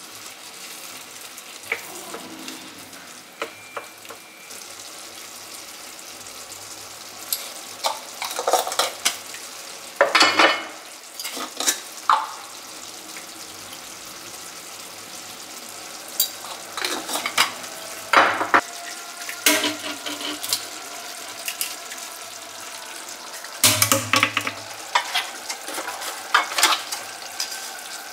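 Tomato, pepper and onion sauce simmering and sizzling in a frying pan, with a steady hiss. Over it come sharp clatters and knocks against the pan in several clusters, from a utensil stirring and tapping.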